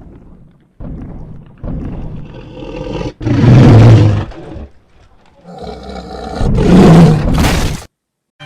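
A roar sound effect: two long, deep, animal-like roars, each building to a loud peak and then cutting off, the second starting about halfway through.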